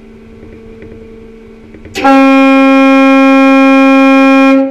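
Fast ferry's horn sounding one long, steady blast of about two and a half seconds, starting about two seconds in and cutting off sharply: the signal of the ship leaving port. A steady low hum runs beneath it.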